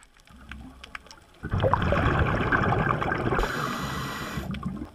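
Scuba diver's regulator exhaust: one exhaled burst of bubbles rushing and gurgling for about three seconds, starting about one and a half seconds in, heard underwater through the camera housing.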